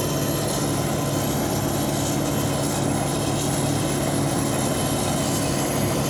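Niva SK-5 combine harvester running steadily while harvesting. Its diesel engine and threshing machinery make a constant low drone with no change in pitch.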